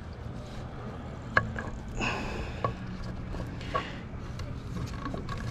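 A few light knocks and brief rustles of hands handling gear close to the microphone, over a steady low rumble.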